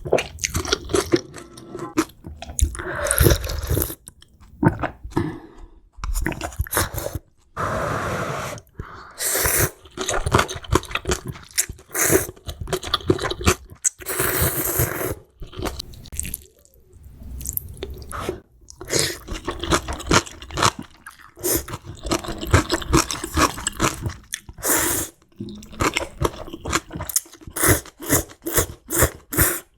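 Close-miked eating of spicy ramen noodles: wet chewing and smacking, broken by several drawn-out slurps of noodles lasting about a second each.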